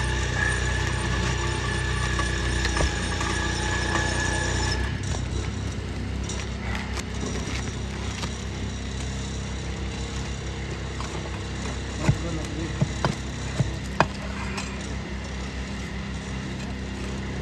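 A steady motor hum stops about five seconds in. Faint scraping and clicking of work on asphalt roof shingles follows, with four sharp knocks close together in the second half.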